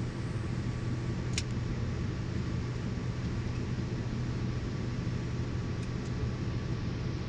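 Steady drone of an aircraft cabin: engine and airflow noise with a low hum. A single short click about a second and a half in.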